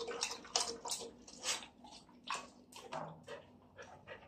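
A thirsty dog lapping water from a plastic bucket: quick, irregular wet laps, about three a second.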